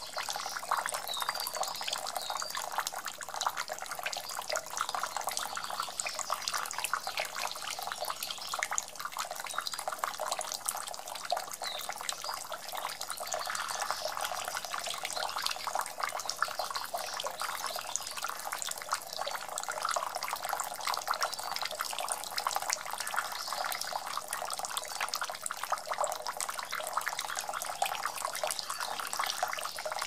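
A thin stream of water from a small tabletop fountain falling onto smooth stones and into the shallow pool below, a steady, continuous fine splashing.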